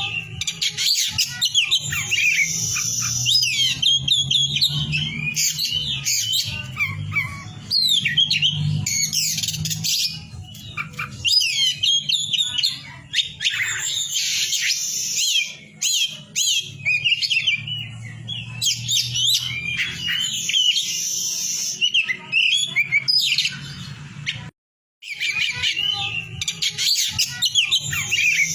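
Oriental magpie-robin (kacer poci) singing loudly in rapid phrases of varied whistles, chirps and trills, separated by short pauses. A steady low hum runs underneath, and the sound cuts out completely for a moment near the end.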